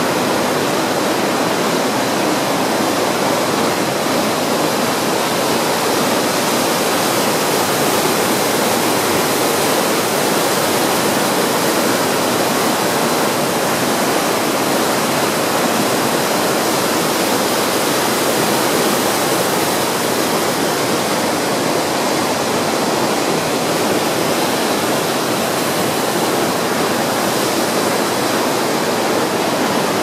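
Waterfall and rocky mountain stream, white water rushing over stones in a steady, loud, unbroken rush.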